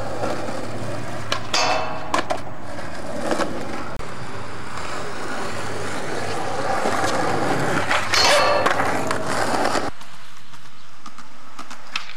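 Skateboard urethane wheels rolling on concrete, with the sharp clacks of board pops and landings. About eight seconds in comes a longer, louder scrape with a ringing tone, a grind along a metal handrail. Near the end the rolling noise drops out and more clacks of a pop follow.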